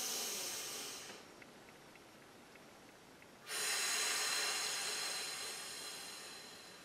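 A woman taking slow, deep breaths. One long breath tails off in the first second, and after a pause another starts suddenly about three and a half seconds in and fades away over the next three seconds.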